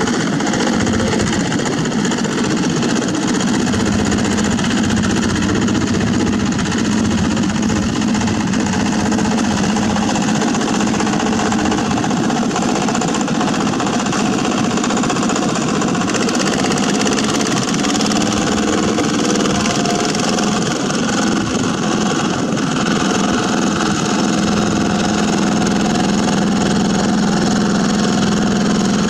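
Small single-cylinder diesel engine of a walking tractor running steadily with a rapid knocking chug.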